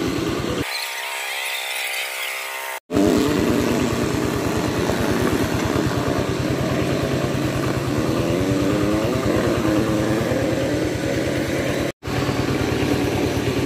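Small engine chugging steadily with an even fast beat: the machine that drives a traditional wooden sesame oil press (chekku) as it crushes the seed. The sound cuts out briefly twice.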